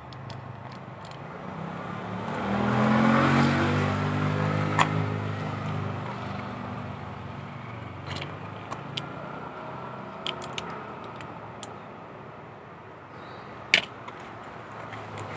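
A motor vehicle passing: its engine swells about two seconds in, then fades as its pitch drops. Sharp clicks here and there, one louder near the end.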